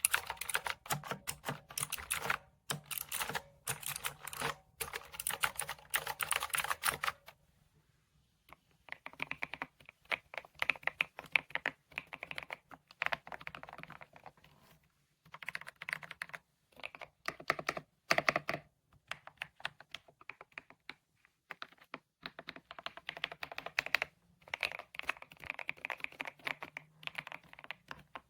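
Typing on a Kisnt gasket-mounted wireless mechanical keyboard: fast runs of keystroke clicks in bursts of a few seconds, with short pauses between them, the longest starting about seven seconds in.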